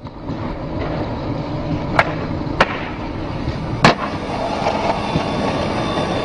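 Skateboard wheels rolling on concrete with a steady rough rumble, two sharp clacks of the board about two and two and a half seconds in, then the loudest smack near four seconds as the board lands at the bottom of a stair set, and rolling on.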